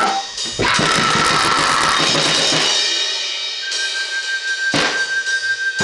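Drum kit played hard with cymbals crashing, then left to ring out in a wash about halfway through, with a steady high whine over it. Quick drum hits come back in near the end.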